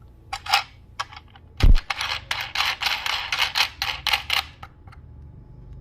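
Handling noise: a few clicks, then a heavy thud about 1.7 s in, followed by a couple of seconds of rapid clicking and rustling as the loudspeaker and its terminals are handled close to the microphone.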